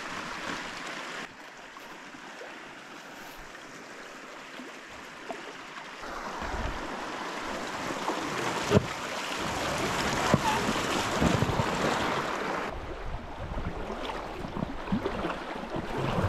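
Rushing river water around a canoe, with wind on the microphone. The water noise jumps sharply in level a few times, and there are a few sharp knocks after the middle.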